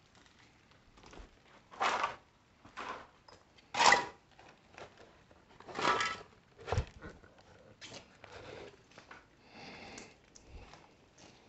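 Slow, uneven footsteps crunching and scuffing over debris and loose boards, with a single dull thump a little past halfway.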